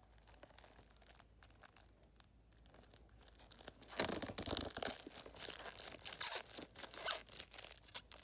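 Plastic shrink-wrap being torn and crinkled off a disc case. It starts as light, scattered crackling and turns loud and dense about four seconds in.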